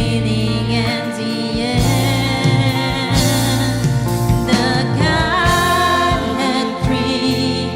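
Live church worship band playing a praise song, with voices singing over it.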